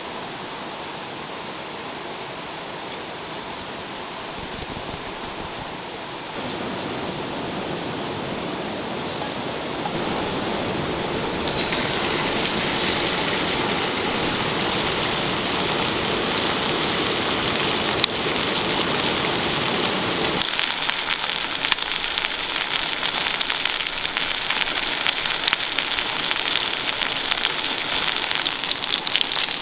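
A steady rushing hiss, then from about twelve seconds in a loud, crackling sizzle of sirloin steak frying in a pan over a campfire.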